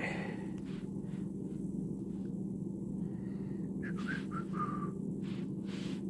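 A steady low hum throughout, with a few faint short falling whistle-like notes about four to five seconds in.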